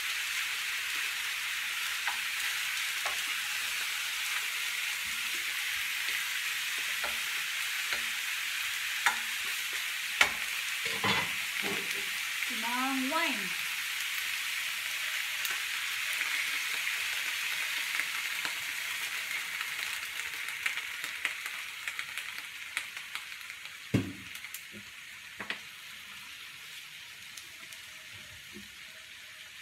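Pork ribs sizzling steadily in a frying pan, with scattered knocks of a wooden spatula stirring against the pan. The sizzle grows fainter in the last third.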